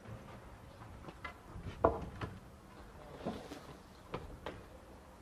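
A hammer knocking on wooden boards of an overhead roof frame: several irregular sharp knocks, the loudest about two seconds in.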